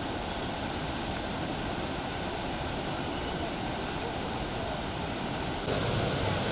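Swollen floodwater rushing, a steady, even wash of noise that gets louder about five and a half seconds in.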